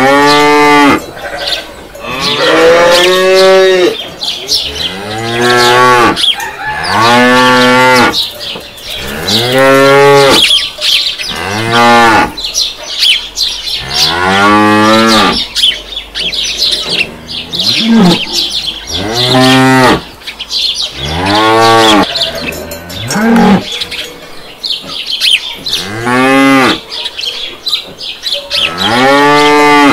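Cows mooing loudly and repeatedly, one call after another every second or two. Each moo rises and then falls in pitch.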